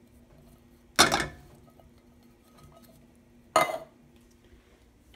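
Two sharp metallic clanks about two and a half seconds apart, each ringing briefly: an emptied tin can knocked against a stainless steel frying pan to shake out the last corn kernels. A faint steady hum sits underneath.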